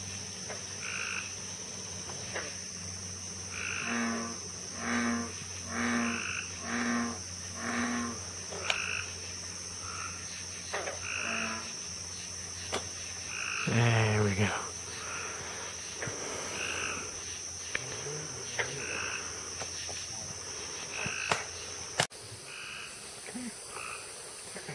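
Frogs croaking: a run of five even croaks about a second apart, then one loud, deeper croak near the middle, with scattered higher chirping calls around them.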